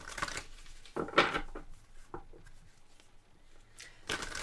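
Tarot cards being handled on a table: a few short snaps and rustles, the loudest a little over a second in and another near the end.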